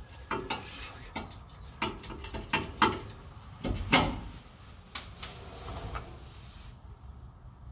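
Hand tools handled: an adjustable crescent wrench clicking and knocking as it is set to size and tried on a fitting. About a dozen irregular light clicks and knocks, the loudest about four seconds in.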